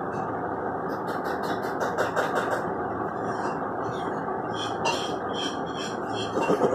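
Music played through a loudspeaker driven by a small class D amplifier board, with a dense low backing and a regular beat of short high hits.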